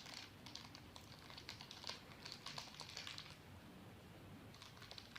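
Pet parrot working at a toffee and its wrapper with its beak: soft, irregular clicking and crinkling, with a short lull a little after the middle.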